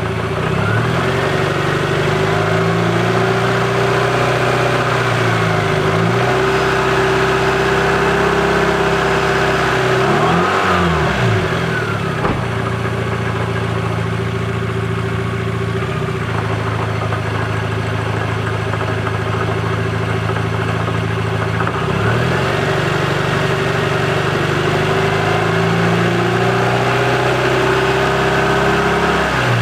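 Daihatsu Copen running under way, its engine note rising and falling several times as it speeds up and eases off, over a steady hum.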